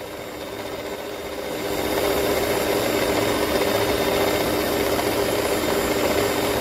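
Electric cake mixer running steadily with its beater in a bowl of flour, working margarine into the bread flour. The motor grows louder over the first two seconds, then holds even.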